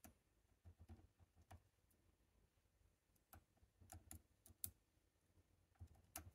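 Faint, scattered metallic clicks of a hook pick working the pins of a Chicago Lock Co tubular lock held under tension, irregularly spaced, with a quick cluster of sharper ticks around four seconds in and another near the end.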